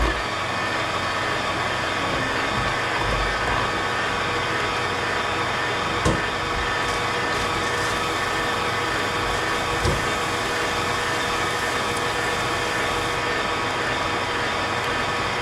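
Electric mixer motor running steadily, beating a flour, milk and yeast dough until smooth, with a couple of light knocks partway through.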